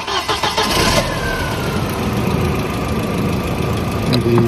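Volkswagen Passat 1.8T's turbocharged four-cylinder engine cranked by the starter, catching after about a second and then running steadily. This is the no-start car whose fault the mechanic traces to a failing relay.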